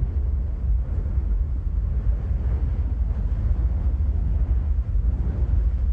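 Deep, steady rumbling roar of lava fountains erupting from a volcanic fissure, with no distinct bangs.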